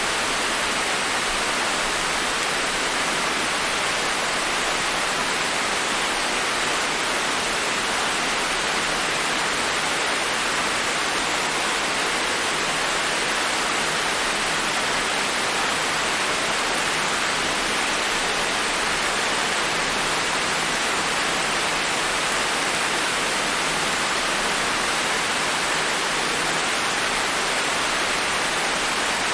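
Steady rain falling, an even hiss of many drops with no single drops or thunder standing out.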